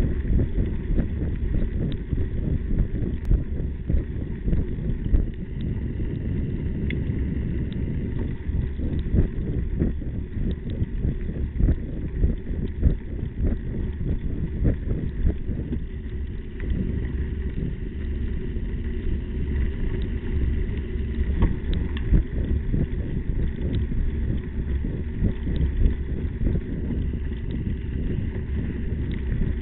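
Slingshot Ripper mountain bike rolling over a rough dirt track, heard from a camera mounted on the bike: a steady low rumble of tyres and wind on the microphone, broken by frequent small knocks and rattles from the bumpy ground.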